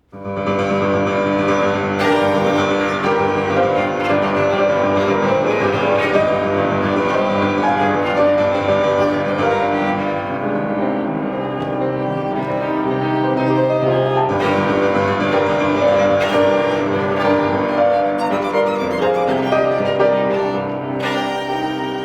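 Live instrumental music for bowed strings and piano, beginning abruptly after silence and playing on.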